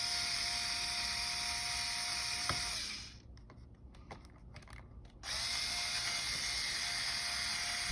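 Small electric screwdriver running, backing out the screws that hold the laptop battery. It runs steadily, stops about three seconds in, and starts again about two seconds later.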